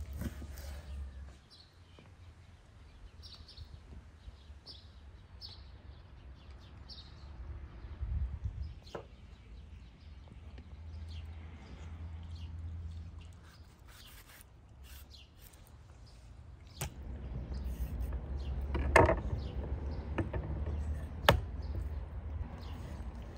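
Rural outdoor ambience: small birds chirping faintly a few times over a low rumble, with a handful of sharp knocks, the loudest late on.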